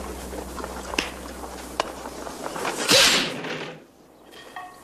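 Old film soundtrack: a loud sharp crack with a swish about three seconds in, a wooden board snapping under a strike, over steady hum and hiss that drop away soon after. Two light clicks come before it, and a few faint bird chirps near the end.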